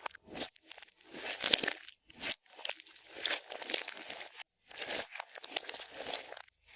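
Clear slime being squeezed and worked by hand, in about four bursts of crackling, popping noise with short pauses between them.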